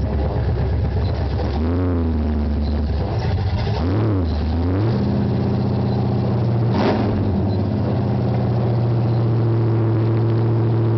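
Chevrolet Monte Carlo's 355 small-block V8 heard from inside the car. Its pitch rises and falls in the first few seconds as it drives, then it settles into a steady idle about five seconds in. One short sharp click or knock comes near seven seconds.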